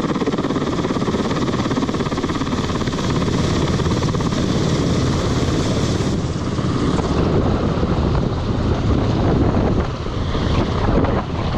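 UH-60 Black Hawk helicopter hovering overhead with a sling load, its rotor chop and engine noise loud and steady; a higher whine in the sound fades about halfway through.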